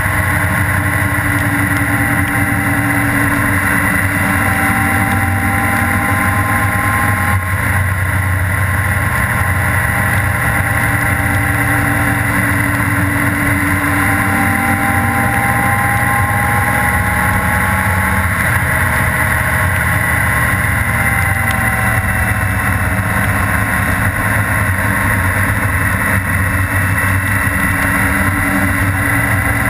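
Honda Gold Wing GL1800's flat-six engine running at a steady cruise, its pitch rising and falling slightly a few times, over steady wind and wet-road noise.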